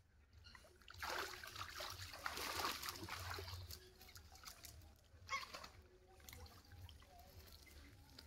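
Water splashing and trickling as a wet cast net is hauled up out of a pond. The splashing starts about a second in and lasts about three seconds, and a shorter splash comes later.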